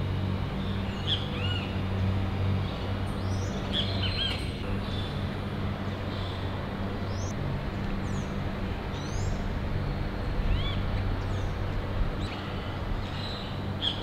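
Orange-chinned parakeets calling: scattered short, high chirps, one or two every second or so, over a steady outdoor hiss and a faint low hum.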